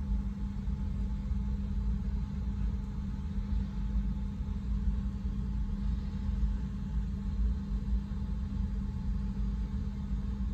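Steady low rumble and hum, with no clicks or taps standing out.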